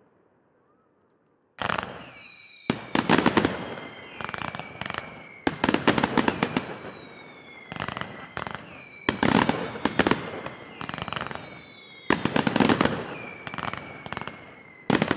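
Fireworks display: after a second and a half of silence, a rapid string of bangs and crackling bursts, a new cluster every second or so. Under the bangs runs a high whistling tone that slides slowly down in pitch.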